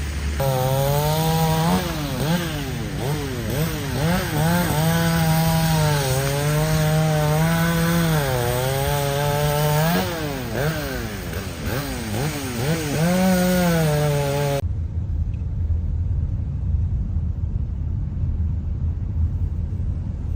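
Chainsaw running at high revs and cutting. Its pitch dips and recovers again and again as the chain bites into the wood. It stops abruptly about three-quarters of the way in, leaving a low steady rumble.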